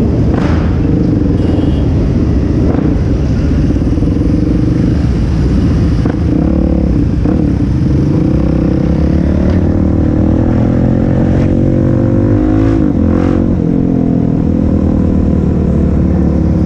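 Suzuki DR-Z400SM supermoto's single-cylinder four-stroke engine running as the bike is ridden in a group of motorcycles, with wind rushing over the microphone. The engine note holds fairly steady, then rises and falls back about twelve to thirteen seconds in.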